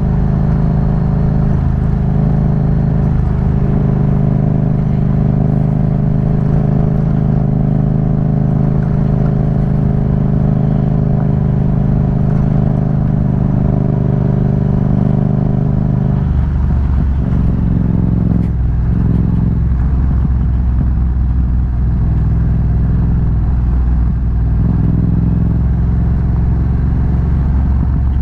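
Yamaha MT-07 parallel-twin engine running at steady revs on the move. A little past halfway through, its note drops to lower revs and then rises and falls unevenly.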